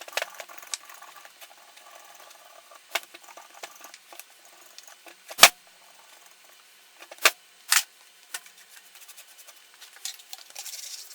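Scattered sharp knocks and light clicks from tools and wood being handled, with one loud knock about five seconds in and two more a couple of seconds later.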